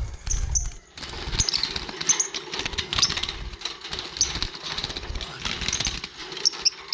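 Lovebirds chattering with many short, sharp chirps, mixed with the knocks and rustle of a bird being handled.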